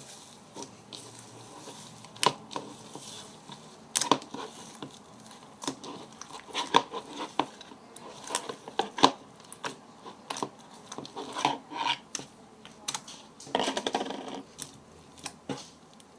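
Floam slime, slime packed with small foam beads, being squished and kneaded by hand: irregular sharp pops and crackles, with a denser run of crackling near the end.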